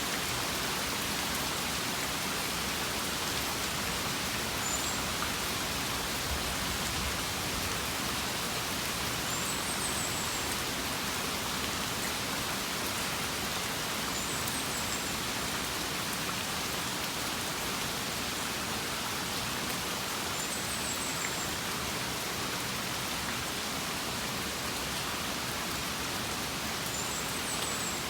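Steady rain falling beside a house, an even hiss that does not change. A short, faint high chirp comes back about every five seconds.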